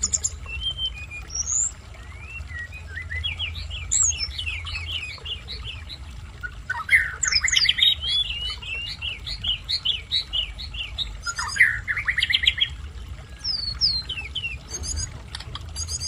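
Caged tledekan gunung flycatcher singing in quick, rapid trilled phrases, loudest about seven seconds in and again near twelve seconds, with a steady low hum underneath.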